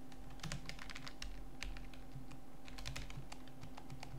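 Computer keyboard keys clicking in quick, irregular runs, over a faint steady electrical hum.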